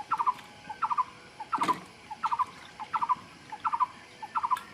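A bird calling over and over: a soft note followed by a quick run of three higher notes, repeated about every two-thirds of a second. A single sharp click comes about a third of the way in.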